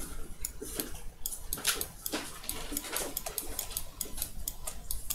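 Rapid, irregular clicking of a computer mouse and keyboard, several clicks a second, over a low steady hum.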